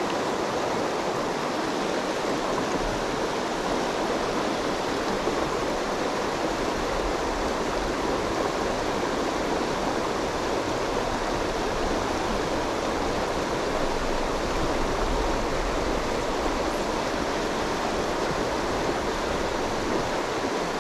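Water rushing over a rocky riffle in a shallow river, a steady, even rush of white water.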